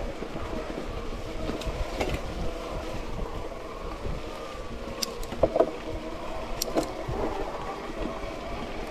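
Mountain bike ridden over a wet, muddy trail: tyres rolling and the bike rattling steadily, with a few sharp clicks and a cluster of louder knocks about halfway through.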